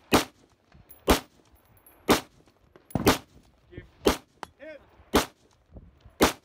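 AR-15-pattern rifle firing seven shots at a steady pace, about one a second, at steel targets. A faint ringing tone follows some of the shots, from the steel plates being hit.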